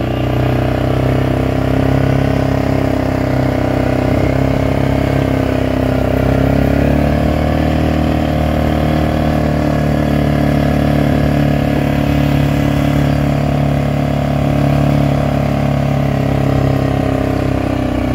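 ATV four-wheeler engine running steadily while riding across a grass field. Its pitch shifts about seven seconds in.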